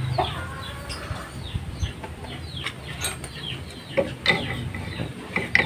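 Chickens clucking in short, repeated falling calls, with a few light clicks a few seconds in.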